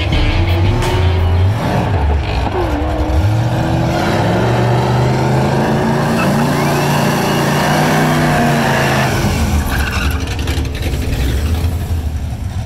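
Supercharged 6.2-litre V8 of a Cadillac CTS-V coupe held at high revs during a burnout, the rear tyres spinning and squealing. The revs drop about nine seconds in.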